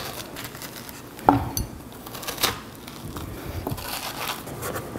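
Metal spoon scraping and scooping the seeds and stringy pulp out of a peeled curry squash half, in short scrapes, with one sharp knock about a second in.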